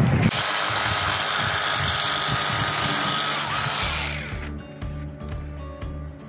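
Electric fillet knife running as walleye are cleaned, under background music; the sound drops in level about four seconds in.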